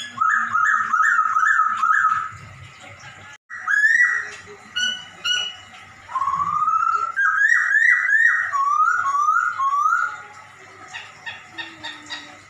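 Poksay Hongkong bird singing its cat-like meowing song. A quick run of about seven slurred notes opens the stretch, then single rising notes, then a long rising call that breaks into a run of about eight up-and-down notes, with faint ticking near the end.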